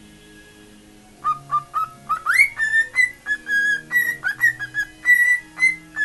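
Pet cockatiel whistling a made-up tune. About a second in it starts with a few short notes, swoops quickly up in pitch, then repeats clear higher notes in a lilting, irregular rhythm.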